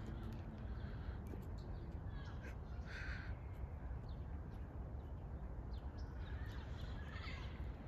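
Two short, harsh bird calls, one about three seconds in and one near the end, over a steady low rumble.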